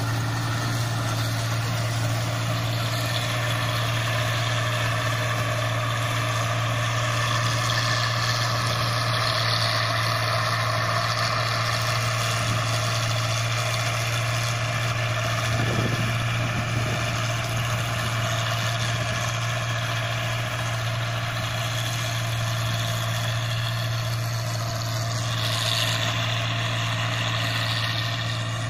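Old Holland rice combine harvester running steadily as it works through the paddy, its engine giving a constant low drone that holds the same pitch and level throughout.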